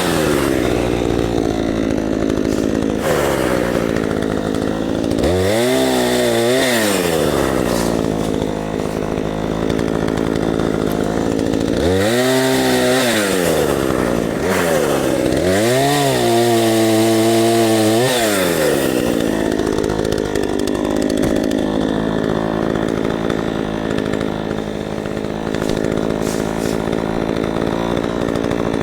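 Craftsman 18-inch two-stroke chainsaw revved up to a high whine and dropped back several times, then idling steadily for the last ten seconds or so.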